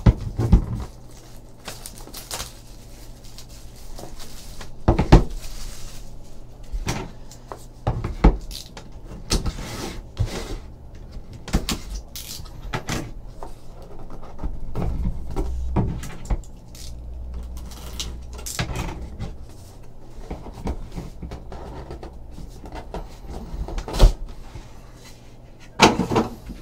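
Hands opening and handling a small cardboard trading card box: scattered taps, scrapes and rustles, with a few sharper knocks against the table.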